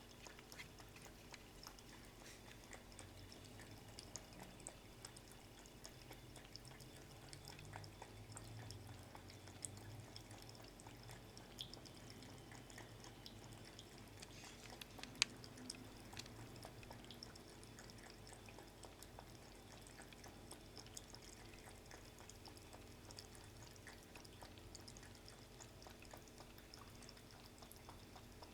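Near silence: faint room tone with a low steady hum, scattered small clicks and one sharper tick about halfway through.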